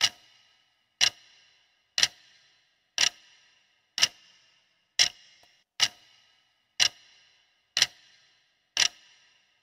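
Clock-tick sound effect counting down the seconds of a quiz answer timer: ten sharp ticks about one a second, each with a brief ringing tail.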